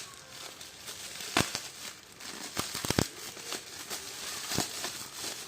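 Packaging being handled during an unboxing: crinkling and rustling with several sharp clicks and knocks, a quick cluster of them near the middle.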